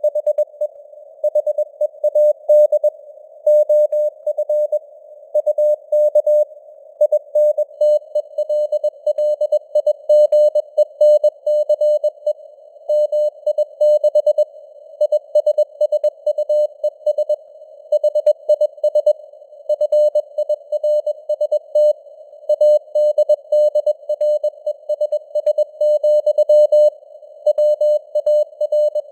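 Computer-generated Morse code (CW) sent at 21 words per minute: a single mid-pitched tone keyed on and off in dots and dashes, with short gaps between letters and words. It sits in a narrow band of simulated radio receiver hiss that carries on through the gaps.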